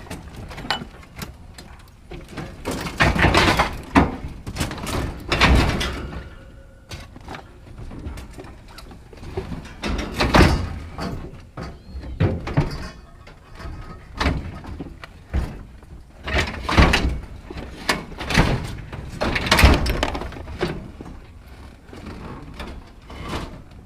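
Scrap metal being shifted and set down: a string of knocks, thuds and scrapes, the loudest about 3, 5, 10, 17 and 20 seconds in.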